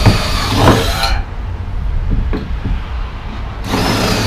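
Cordless drill boring down into a trailer's wooden floor through the holes of a metal mounting plate. Its motor whine stops about a second in and starts again near the end, with a low rumble and a few knocks in between.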